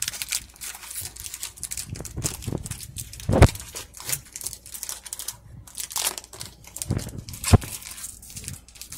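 Foil wrapper of a Pokémon card booster pack crinkling and tearing as it is pulled open by hand, with two dull thumps, one about three and a half seconds in and one near seven and a half seconds.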